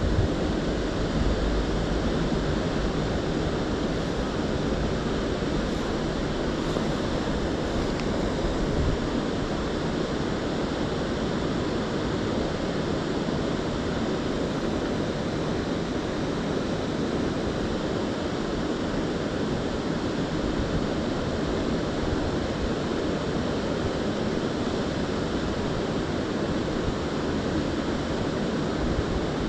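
Steady rushing of a fast-flowing river current.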